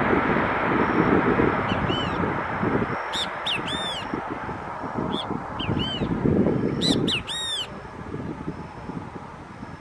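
A Boeing 737's jet engines on the landing roll, a rushing noise that slowly fades. Birds give short runs of sharp, repeated calls over it several times.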